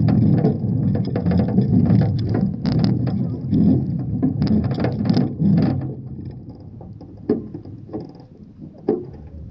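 Rolling bicycle with the phone jostling in its wire front basket: a loud rumble with scattered rattles and knocks. It eases off after about six seconds, leaving a few isolated knocks.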